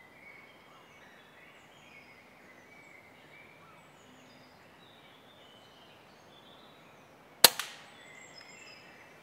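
A single shot from a Daystate Wolverine pre-charged pneumatic air rifle, a sharp crack with a brief tail about seven and a half seconds in, against faint woodland birdsong.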